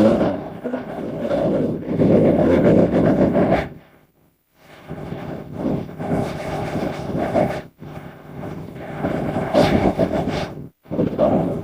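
Several long, rough, deep monster roars, one after another with short breaks between them: layered creature sound effects mixed from dinosaur and animal roars.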